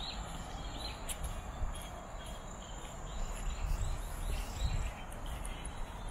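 Small birds chirping, many short high chirps at irregular intervals, over a steady low rumble.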